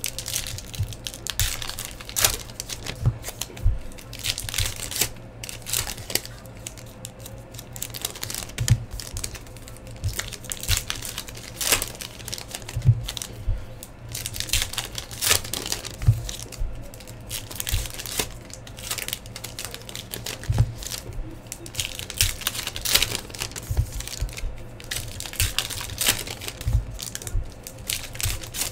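Plastic wrapping crinkling and tearing in irregular handfuls as a trading-card hobby box is unwrapped and handled, with a few dull knocks of cardboard packs being set down.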